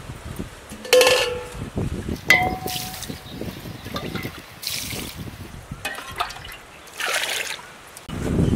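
Rice being washed in an aluminium pot: water splashing into the raw grains as the pot is filled, with rustling of the rice under the hands. A steel bowl clinks against the metal twice in the first few seconds.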